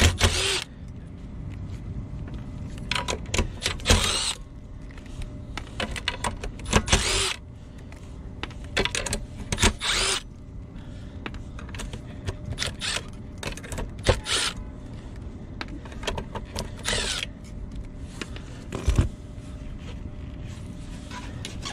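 Milwaukee cordless drill/driver with a 5/16 nut driver backing out the screws of a fan motor bracket, whirring in short runs of under a second several times, with screws and metal parts clinking and rattling in between.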